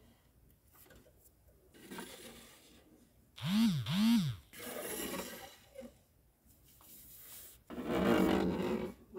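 Plastic toy figurines being handled and set down on a shelf, with rustling and scraping in several stretches. About three and a half seconds in come two short voice-like sounds, each rising and falling in pitch.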